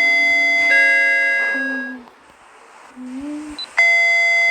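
Lift's electronic arrival chime: a two-tone ding-dong, a higher note then a lower one, both ringing on and fading, with a second chime starting near the end.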